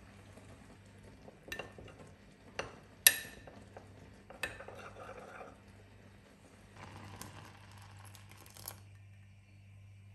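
A metal teaspoon clinking against a small drinking glass several times, the loudest clink ringing briefly, then scraping round the inside of the glass as cornstarch is stirred into water.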